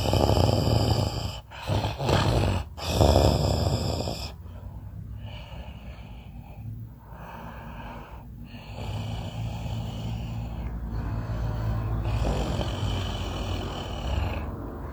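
Snoring: a few loud, rough breaths in the first four seconds, then softer and steadier.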